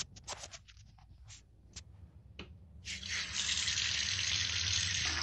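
A few scattered clicks, then about three seconds in a garden hose starts running water into a plastic bucket with a steady rush.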